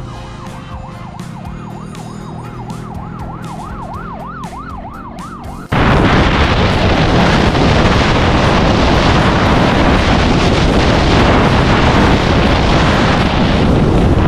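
A siren wailing up and down, its sweeps speeding up. About six seconds in it cuts off abruptly to a loud, steady rushing noise.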